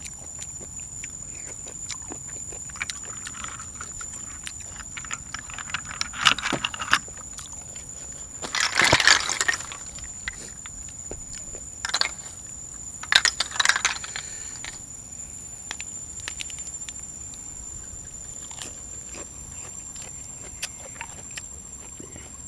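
Close-up eating sounds: chewing and mouth noises with small clicks, and four louder, noisy crunching or sucking bursts of about a second each in the middle. A faint steady high-pitched whine runs underneath.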